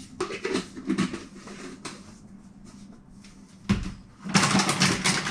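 Kitchen containers and packaging being handled on a counter during shake preparation: scattered light clicks and rustling, a dull knock about three and a half seconds in, then busier rustling and clattering near the end.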